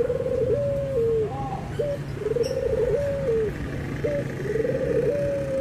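A puter (Barbary dove) cooing in repeated phrases. Each phrase is a short rising note followed by a longer rolling coo that steps down in pitch. There are about three phrases in a row.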